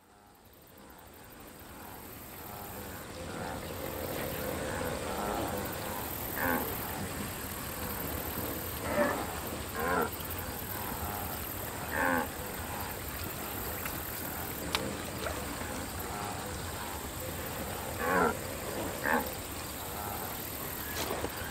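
Short animal-like calls from cartoon wildebeest, about six in all, over a steady outdoor ambience that fades in over the first few seconds.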